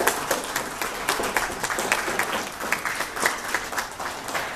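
Audience applauding: many hands clapping at once, fading a little toward the end.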